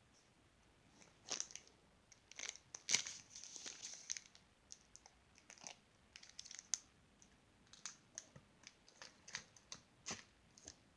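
Slime being squished and pulled by hand: quiet, irregular sticky crackles and small clicks, busiest in the first few seconds and then scattered.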